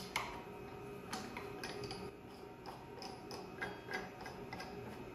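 Light, irregular clicks and taps from a wooden board and tools being handled on a workbench, about eight small knocks spread over a few seconds over a faint steady hum.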